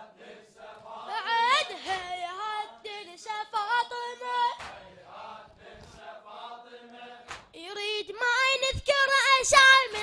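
Male voices chanting a Shia latmiya mourning lament, the melody rising and falling and getting louder in the last two seconds. A few sharp slaps near the end come from the mourners beating their chests.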